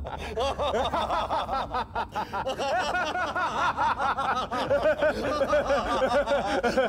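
Several men laughing hard together in long, rhythmic runs of ha-ha laughter.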